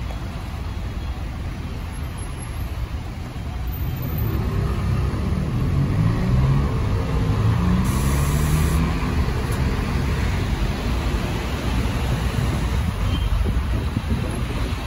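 A motor vehicle's engine over a steady low rumble, getting louder about four seconds in, its pitch rising and falling for a few seconds.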